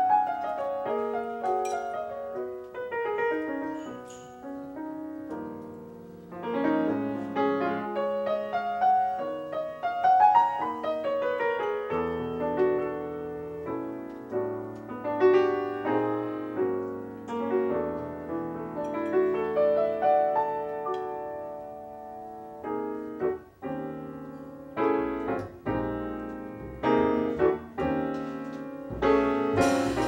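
Grand piano playing a melodic passage of single notes and chords, notes struck and left to ring. Lower notes join in from about halfway through.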